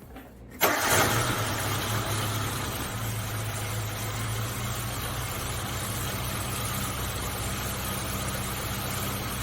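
Suzuki Samurai's four-cylinder engine starting about half a second in, then idling steadily, on its stock spark plug wires during a test for a rough, shaky idle that the owner doesn't think is caused by bad plug wires.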